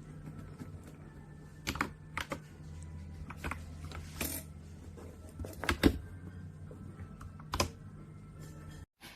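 Scattered key presses on an Akko 5075S mechanical keyboard with wine red switches and XDA-profile PBT keycaps: about eight separate clacks at uneven gaps, over a low steady hum. The sound cuts out briefly near the end.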